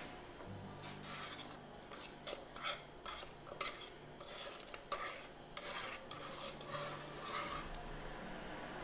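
Wire whisk scraping and clicking against the inside of a stainless steel pot as thick walnut-and-grape-molasses paste is scraped out, a run of irregular scrapes and taps that stops near the end.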